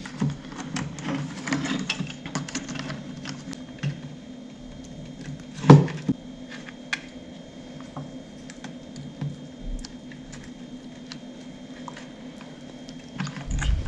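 Small clicks and rattles of hands working an open plastic clothes-iron housing, wire crimp terminals and a crimping plier, with one sharper, louder click about six seconds in. A faint steady hum runs underneath.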